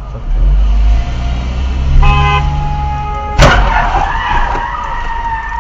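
Car horn blast about two seconds in, then a loud crash impact of a T-bone collision about a second later, with a steady tone holding after it over road and engine rumble.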